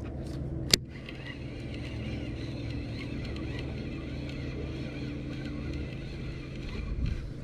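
Baitcasting reel being cranked steadily on a spinnerbait retrieve, with a faint whir from its gears, over a steady low motor-like hum. A single sharp click comes under a second in.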